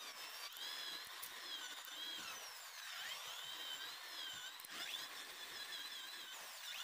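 Electric drill boring holes into a block of babool wood for a hand plane's blade slot. The motor whine wavers up and down in pitch as the bit loads and frees in the wood.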